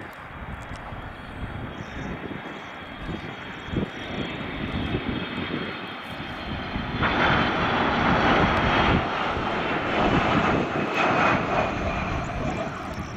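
Boeing KC-135R Stratotanker's four CFM F108 turbofan engines on landing approach, growing louder about seven seconds in as the jet passes close by. A steady high whine sits over the rumble and drifts slightly lower in pitch near the end.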